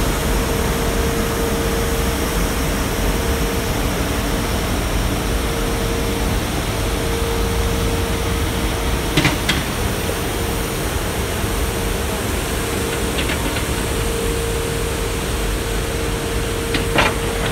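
Johnston VT652 road sweeper running, its suction system giving a loud, steady rush with a steady whine. A few short, sharp clatters come about halfway through and again near the end.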